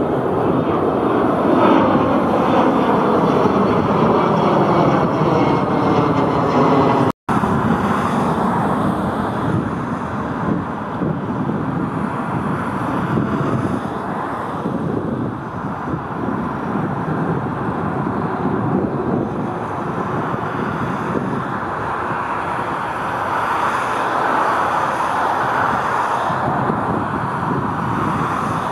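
Narrow-body jet airliner's engines passing close by, with several tones sliding down in pitch. The sound drops out for an instant about seven seconds in, then the jet engine noise carries on steadily.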